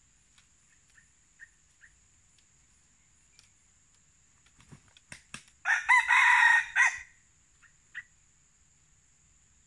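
Red junglefowl rooster crowing once, about six seconds in: a loud crow lasting just over a second, preceded by a few sharp claps.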